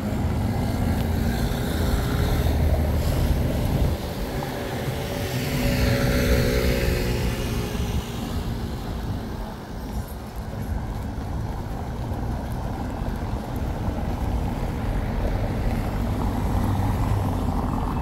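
Road traffic: motor vehicles running past, with one passing closest about six seconds in, its sound rising and falling as it goes by.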